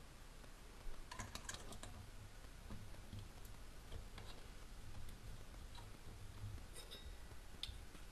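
Faint, scattered clicks and light taps over a low hum, with a small cluster of clicks about a second in and single ones later.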